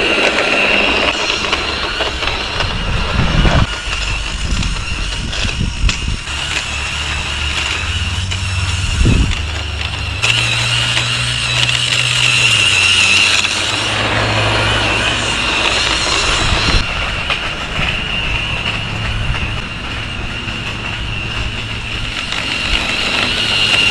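A motor running, with a steady high whine and a low hum that shifts pitch in steps.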